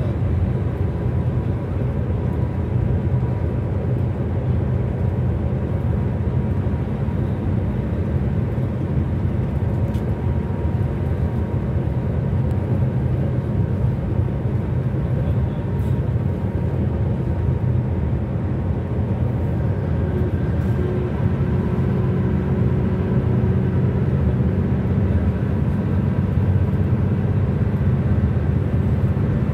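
Car driving at speed on a highway: a steady rumble of tyre, road and engine noise heard from inside the car, with a faint steady whine.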